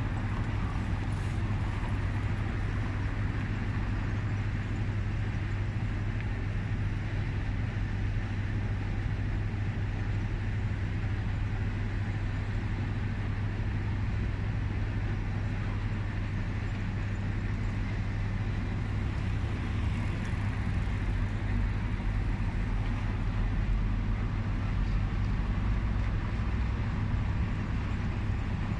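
Steady city road-traffic noise: a constant low rumble of cars, buses and scooters, with no single vehicle standing out.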